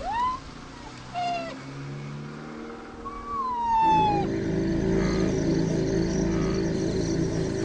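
Young white rhinos give three high, squealing, mew-like calls: a short rising one, a brief one, then a longer falling one. Background music comes in about four seconds in.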